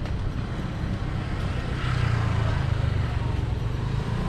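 Street traffic: a steady low motor rumble, with a motor vehicle passing close about two seconds in.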